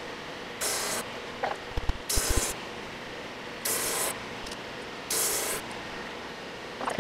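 Benchtop drum sander running with its dust collection, with four short bursts of sanding hiss about every second and a half as a thin wooden cavity cover is taken down to thickness. There are a few low knocks about two seconds in.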